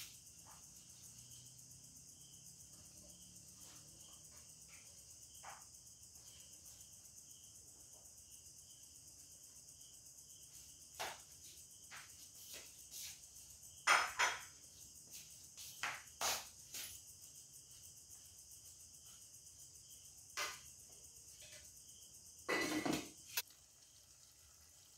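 Steady high-pitched chirping of insects, with a few sharp clinks and knocks of kitchenware starting about halfway through, the loudest a short clatter near the end.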